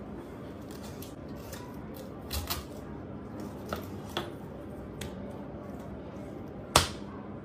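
Kitchen knife filleting a whole fish on a cutting board: quiet cutting along the backbone with a few short sharp clicks and snips, and one much louder knock near the end.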